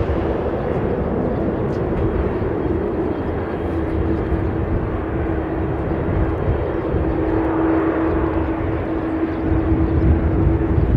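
Boeing 787-9 jet engines running at low thrust as the airliner rolls slowly before its take-off run: an even rushing noise with a low rumble and one steady whining tone held throughout.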